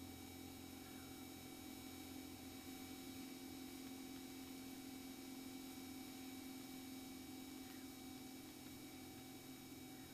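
Faint steady drone and hum from an Extra 200 in flight, as carried on the cockpit headset intercom audio, with a few constant tones over it. The low part drops slightly about three seconds in.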